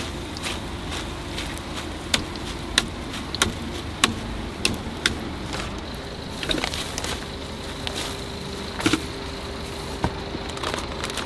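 A wire-mesh frying skimmer clinking sharply against the metal rim of an oil pot, a string of taps about every half second between two and five seconds in and a few more later, over a steady low background rumble.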